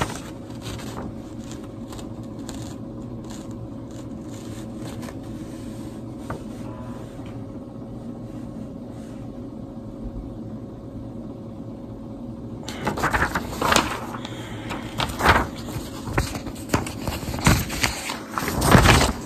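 Steady low room hum with a few faint steady tones. About two-thirds of the way through, paper rustling and handling knocks begin as a printed sheet is moved about, loudest near the end.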